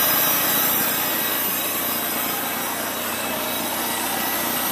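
1951 Farmall Cub's four-cylinder flathead engine idling steadily, running smooth.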